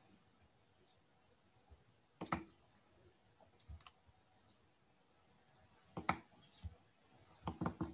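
Computer mouse clicking a handful of times, some clicks coming in quick pairs, with a brief flurry near the end.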